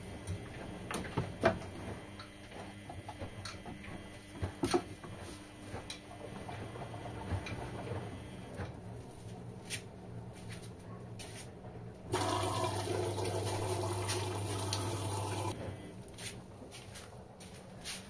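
Front-loading washing machine tumbling a wet load, with scattered knocks and sloshing from the drum. About twelve seconds in, water rushes through the machine with a steady hum for about three and a half seconds, then cuts off suddenly.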